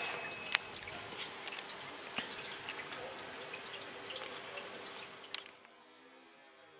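Rain dripping close by: irregular sharp drop ticks over a steady hiss. It cuts off abruptly about five and a half seconds in, leaving only a faint hum.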